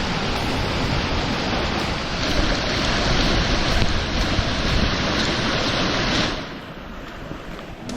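Rushing water at a waterfall, a steady heavy rush that grows louder about two seconds in and drops off sharply about six seconds in.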